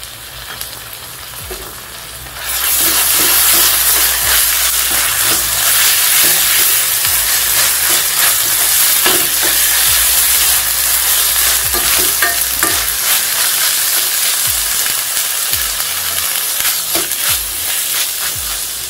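Sliced onions and ginger-garlic paste frying in coconut oil in a steel pan: a steady sizzle that grows sharply louder about two and a half seconds in, with the stirring scraping against the pan throughout.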